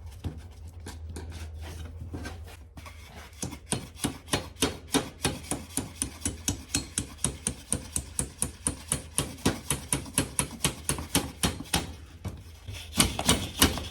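Steady run of quick hammer taps, about four a second, driving the pivot pin into the throttle pedal of a 1972 VW Super Beetle pedal assembly. The tapping starts about three seconds in after some handling noise.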